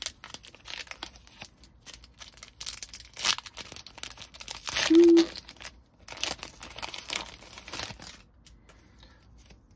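Foil wrapper of a Pokémon Obsidian Flames booster pack crinkling and tearing open, a dense run of crackles that dies down about eight seconds in.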